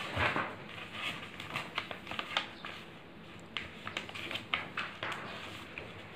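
Sheet of paper rustling and crackling as it is folded by hand and its creases pressed flat on a tabletop, in short irregular crinkles and taps.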